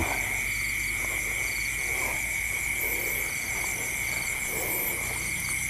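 Night chorus of insects and frogs in a rice paddy: a steady high insect drone with short chirps repeating every half second or so, and a few faint lower frog calls.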